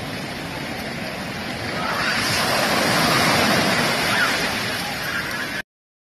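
Small sea waves breaking and washing up a sandy beach, a steady rush of surf that swells louder about two seconds in as a wave surges up the sand, then cuts off abruptly near the end.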